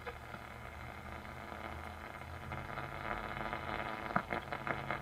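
1937 Philco 37-630 tube radio hissing with static from its loudspeaker as the tuning knob is turned between stations, over a low steady hum. A few short crackles come in near the end as a signal starts to appear.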